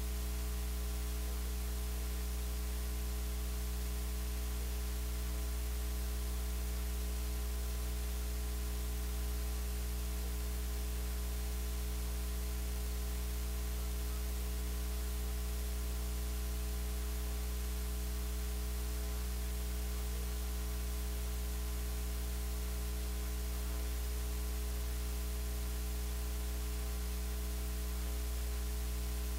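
Steady electrical mains hum with a constant hiss of static.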